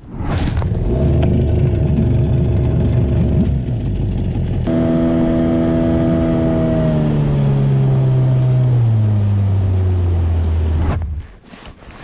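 An engine running loudly. About five seconds in its note turns steady, then slides down as it slows, and it cuts off suddenly near the end.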